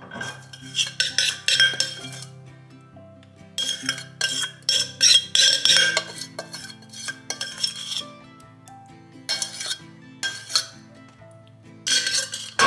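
Repeated bursts of metal utensil clinking and scraping against dishes, in four runs of a second or two each, over soft background music.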